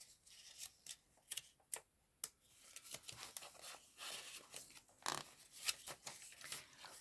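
Paper pages and cards of a handmade journal being handled: a few sharp taps and clicks, then soft rustling as the pages are turned and small paper pieces are pulled from their pockets.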